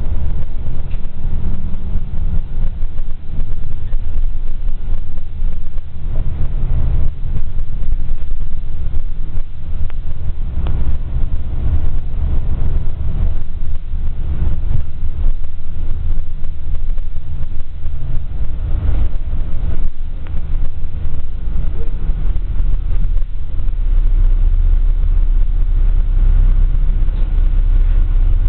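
City bus driving along a street, heard from inside the passenger cabin: a steady low engine and road rumble with a few brief rattles and knocks.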